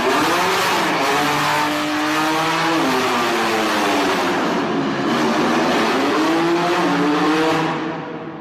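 BMW M3's turbocharged straight-six held at high revs during a burnout, the revs wavering up and down, over the hiss of the spinning rear tyres, inside a road tunnel. The sound fades near the end.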